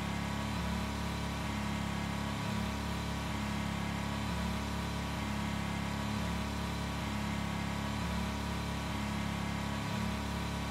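A steady low hum that holds the same pitch and level throughout.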